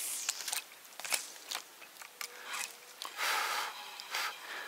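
Crackly rustling of reeds and grass brushed close to the microphone, in a string of short irregular bursts; the longest comes about three seconds in.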